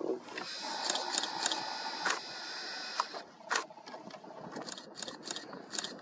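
Video camera's zoom motor whirring steadily for about three seconds as the lens zooms out, followed by a few light clicks.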